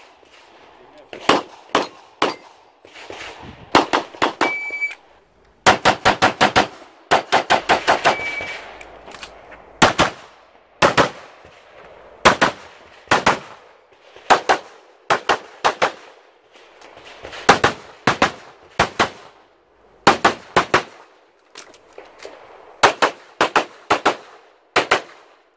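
CZ Shadow 2 9mm pistol firing in quick pairs and rapid strings of four to six shots, with short pauses between groups, typical of double taps on targets during an IPSC stage. Two brief ringing tones sound among the shots.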